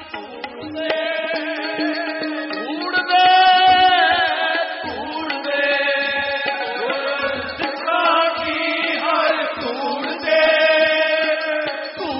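Sikh kirtan: male voices singing a hymn in held, gliding notes to harmonium, with soft tabla strokes underneath.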